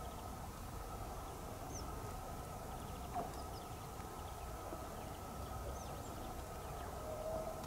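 Freshly frozen sea ice singing: a steady humming tone with a few short, high, falling chirps and a lower sliding tone about three seconds in.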